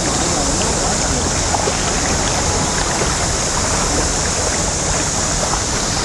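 Steady rush of river water flowing over a shallow stone crossing, with a low rumble beneath it.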